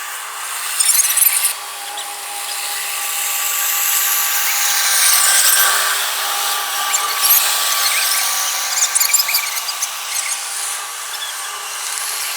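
Rice combine harvester running steadily, its machinery giving a whine of several steady tones over a loud noise that swells a little midway. Short high squeaks come over it about a second in and again near the end.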